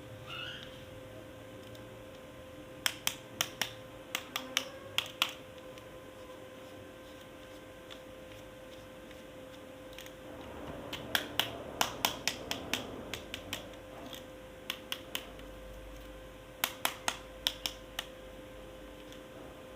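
Sharp clicks of hard plastic toy parts being handled, coming in quick clusters of several clicks each, four runs in all.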